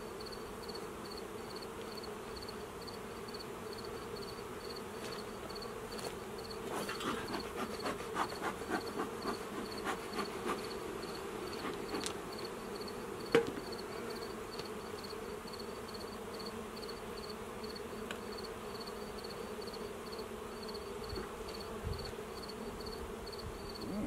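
Honeybees buzzing in a steady hum around an opened hive. About seven to ten seconds in comes a run of short puffs from a bee smoker, and a little later a single sharp knock, the loudest sound.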